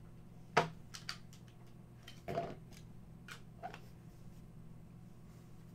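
Light handling noises: a few scattered clicks and a brief rustle of hands working a clear plastic card case and trading cards, the sharpest click about half a second in, over a steady low hum.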